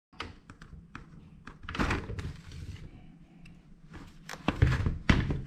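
Hands handling a helmet and camera mount: a run of irregular plastic knocks and clicks, louder about two seconds in and again near the end.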